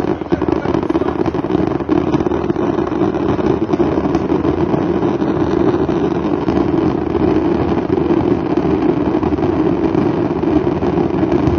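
Large engine running at a steady speed, an even, loud drone without changes in pitch.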